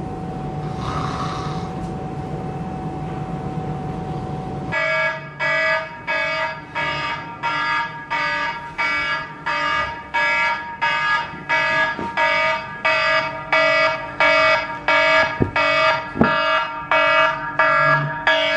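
Smartphone alarm going off: an electronic alarm tone repeating in even pulses, about three every two seconds, starting about five seconds in. Before it there is a low steady hum, and a few soft knocks come in the second half.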